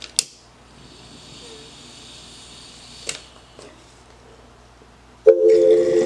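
A lighter clicks, then a faint steady hiss for about three seconds while a glass bong is lit and drawn on, ending in another click. About five seconds in, loud French rap music starts playing.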